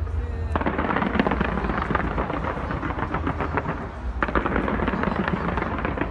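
Fireworks fired from the sides of a skyscraper, going off as rapid volleys of crackling pops over a steady low rumble. A new volley starts about half a second in and another about four seconds in.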